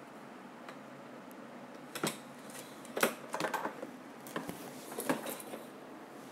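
Small hard objects, such as repair tools and console parts, being handled on a workbench: a scatter of light clicks and clatters about two seconds in, a busier cluster around three seconds, and a few more near five seconds.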